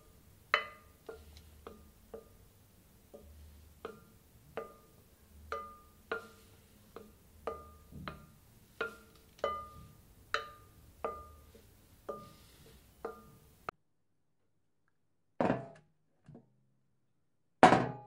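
Batter being stirred in a bowl, the utensil knocking against the bowl about once every two-thirds of a second, each knock with a short ringing tone. The stirring stops about 14 s in, and a baking sheet is then set down with two loud clatters, the second the loudest sound here.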